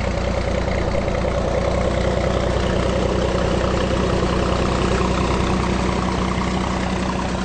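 Vintage farm tractor's engine running steadily at low speed as it tows a passenger wagon.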